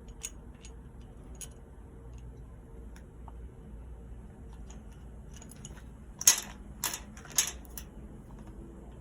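Small clicks and clacks of seatbelt retractor parts being handled and fitted while the pretensioner is put back on, with three loud sharp clacks in quick succession a little over six seconds in.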